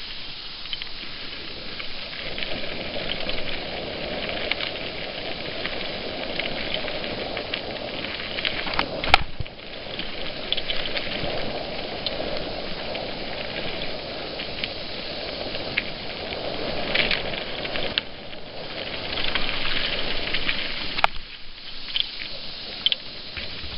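Mountain bike riding fast over dirt singletrack, heard from a helmet-mounted camera: a steady rush of tyres on dirt and wind on the microphone, crackling with grit and twigs under the tyres. Two sharp knocks from bumps, one a little before halfway and one near the end.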